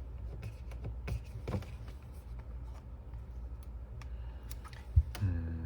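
Rustling and light clicks of paper instruction leaflets and packaging being handled, with a sharp knock about five seconds in.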